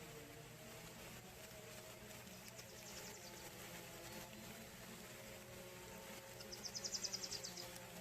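Faint outdoor ambience as light rain falls, with a short, rapid high-pitched trill near the end.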